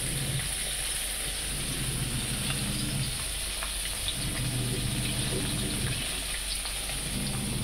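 Turmeric-marinated fish pieces frying in hot mustard oil in a kadai: a steady sizzle with scattered small pops and crackles of spattering oil. A low hum comes and goes underneath.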